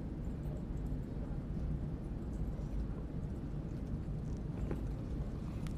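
Steady low background rumble of room noise, with a few faint clicks near the end.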